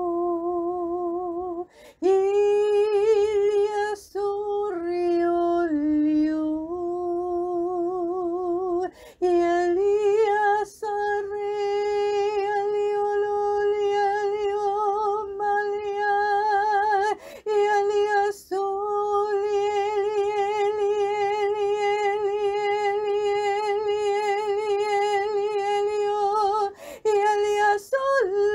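A woman singing without clear words, holding long, wavering notes near one pitch for several seconds at a time, with short breaks for breath between phrases.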